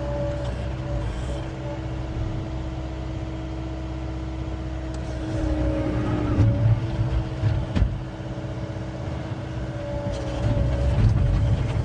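John Deere 333E skid steer's diesel engine running under a steady hydraulic whine. The note shifts and grows louder about six seconds in and again near the end as the machine works. One sharp knock comes a little before eight seconds.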